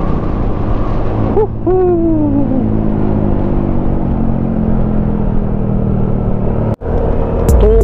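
Yamaha Smash underbone motorcycle running at road speed, with a steady low rumble of engine and wind on the helmet-mounted camera. About a second and a half in, a long hooting voice call slides slowly down in pitch. The sound drops out for an instant near the end.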